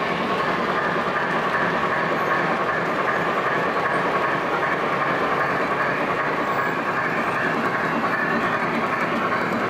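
Three-rail O gauge model train running steadily along the track, heard from a flat car in the train: a continuous rolling clatter of wheels on rail with a steady high hum.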